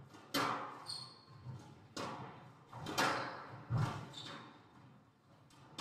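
Squash rally: the ball cracking off rackets and the court walls about once a second, each hit echoing through the court, with brief squeaks of court shoes on the wooden floor.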